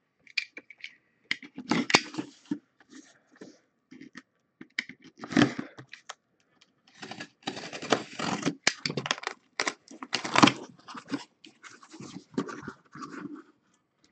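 Box cutter slitting the packing tape along a cardboard box's seam, with scratching and scraping of the cardboard as it is handled. The cutting comes as a dense run of scratchy strokes in the middle, then the cardboard flaps are pulled open near the end.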